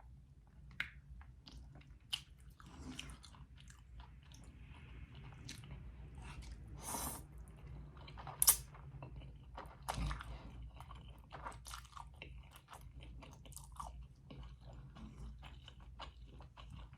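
Close-miked eating sounds of a person chewing noodles and dumplings: wet chewing and small mouth clicks throughout, with a few louder smacks, the loudest about eight and a half seconds in.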